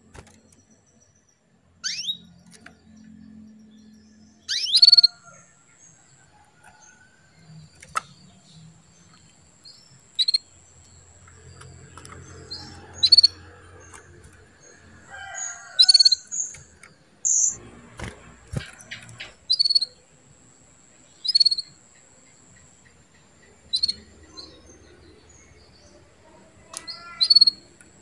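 Female domestic canary giving short, high chirping calls, about ten of them, one every two or three seconds, over a faint steady high tone.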